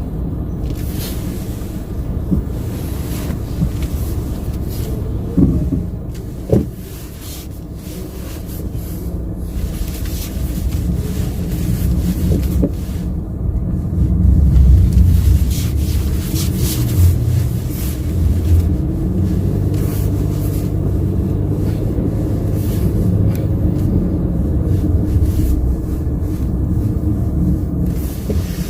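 Low rumble of a car running, engine and road noise, growing louder about halfway through, with two short knocks about five and six seconds in.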